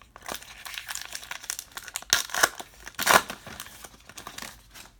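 Foil wrapper of a Topps Heritage baseball card pack being torn open and crinkled in the hands: irregular crackling, loudest around two and three seconds in.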